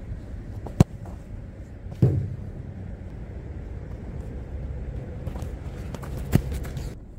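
Football struck by a boot on artificial turf: a sharp tap about a second in, the loudest kick with a low thump about two seconds in, and another firm touch near the end, over a steady low rumble.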